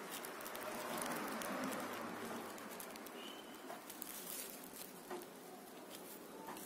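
Faint rustling and light clicks of hands working among leaves and stems, with a short bird call about three seconds in.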